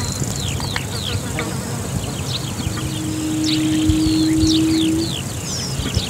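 Yellow-legged buttonquail giving a low, steady hooting note held for about two seconds in the middle, over many short, high, falling chirps from other birds.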